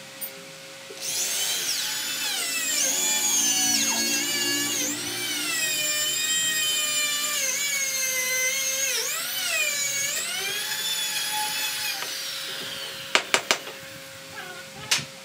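Handheld electric drill running, its whine rising and falling in pitch again and again as the speed changes, stopping after about eleven seconds. A few sharp knocks follow near the end.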